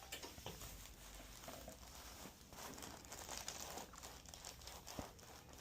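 Faint rustling and crinkling of hands moving over a patient's neck and the treatment table, with scattered small clicks and one sharper click near the end.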